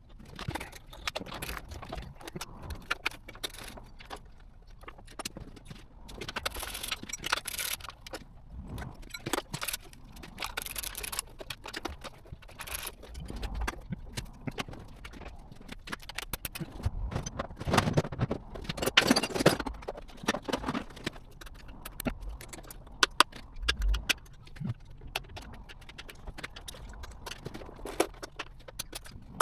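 Metal hand tools and engine parts clinking, knocking and scraping in irregular bursts while a V8 engine is being stripped down, with a louder spell of clatter a little past the middle.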